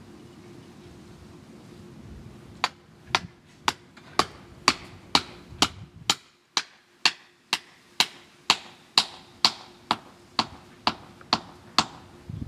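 Hammer driving a metal stake to anchor landscape edging: about twenty sharp strikes, roughly two a second, starting a couple of seconds in.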